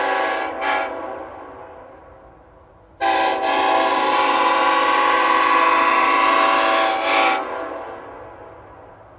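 Nathan Airchime K5-series five-chime locomotive air horn sounding its deep multi-note chord. One blast cuts off just under a second in and echoes away. A second blast of about four seconds starts about three seconds in and ends with a sharp cutoff and a long fading echo.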